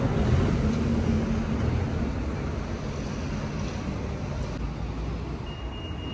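Outdoor street traffic: a vehicle's engine rumble over a steady hiss, fading gradually as it moves away.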